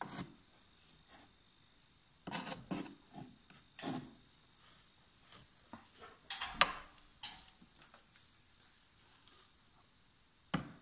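Scattered short scrapes and rustles as a rod pokes dry grass nesting out of a squirrel's nest tucked under a tractor cab's roof edge, the rod rubbing and knocking against the cab. There are a few bursts in the first seven seconds and near-quiet between them.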